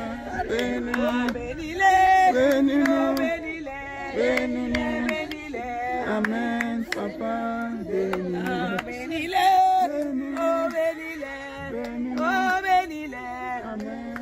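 Voices singing a slow worship chant of long held notes that slide from one pitch to the next.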